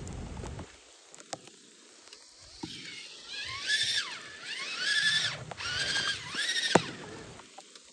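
Traxxas TRX-4 Ford F-150 RC rock crawler's electric motor and gears whining in three throttle bursts, the pitch rising and falling as it climbs over wet rocks. Rain patters lightly at the start.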